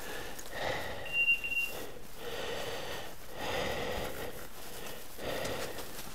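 Footsteps crunching through dry fallen leaves, roughly one step a second, with a short high beep about a second in.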